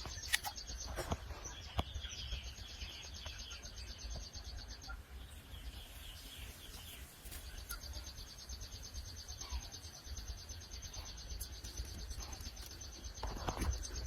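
Quiet outdoor ambience: insects trilling in a high, fast-pulsing buzz that stops for a few seconds midway, with faint scattered bird chirps over a low rumble.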